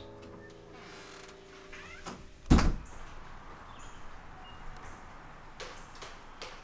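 A door shuts with one loud thud about two and a half seconds in, as soft piano music fades out. A few faint taps of footsteps on metal stairs follow near the end.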